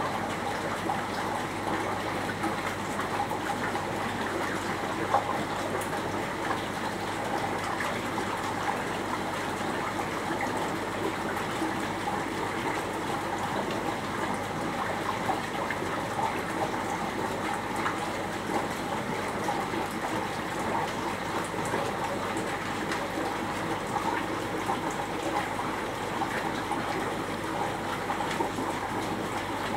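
Aquarium water circulation: water splashing and trickling steadily, over a low steady hum.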